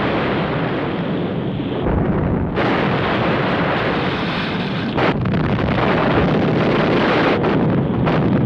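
Naval gunfire and explosions in a dense, continuous rumble, with a sharp crack about five seconds in.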